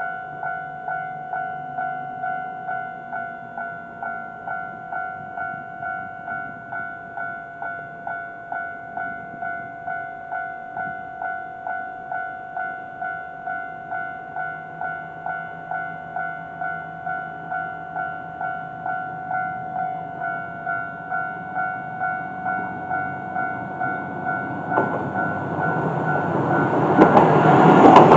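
Electronic warning bell of a Japanese level crossing dinging steadily on two tones, about two strokes a second. In the last few seconds a diesel railcar comes up and passes the crossing, its noise building to the loudest point at the end.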